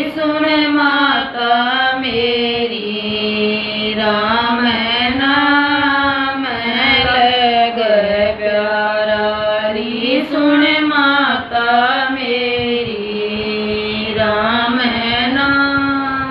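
A woman singing a bhajan, a devotional song, in long held notes that bend up and down in pitch.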